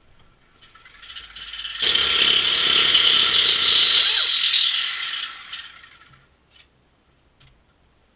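Pneumatic air ratchet running in one long burst of fast clicking rattle. It starts about a second in, is loudest from about two to five seconds, and fades out by about six seconds.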